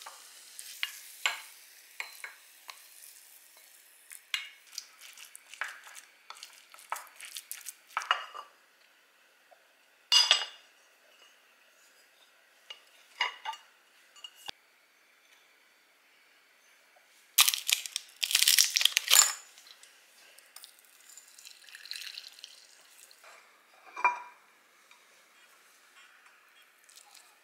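Wooden spoon scooping rice and tapping and scraping against ceramic bowls and a plate: scattered light knocks and clinks. A louder run of scraping and clatter comes past the middle, and a single ringing clink comes near the end.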